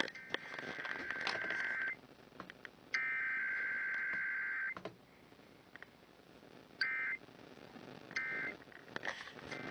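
Emergency Alert System SAME digital data bursts: two long buzzy two-tone header bursts about a second apart, then, after a short pause, two brief end-of-message bursts, with no attention tone between them. Heard over a radio in a room.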